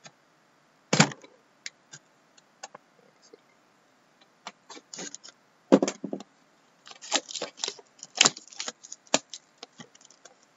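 Plastic shrink wrap being cut and peeled off a cardboard trading-card box: scattered crinkles and crackles, with two louder knocks about a second in and near six seconds, and a dense run of crackling near the end.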